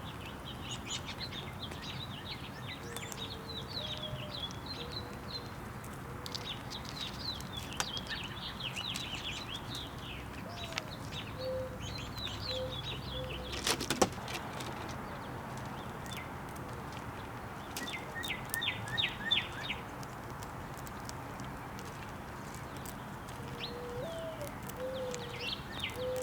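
Small birds chirping and twittering almost without pause, with soft, low, wavering calls now and then. There is a single sharp knock about halfway through, and a quick run of calls a few seconds later.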